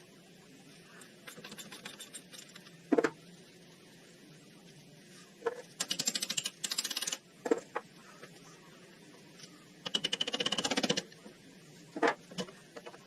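Metallic clicks and knocks from hand tools at work, with two runs of rapid, even clicking about a second long each, one near the middle and one about ten seconds in.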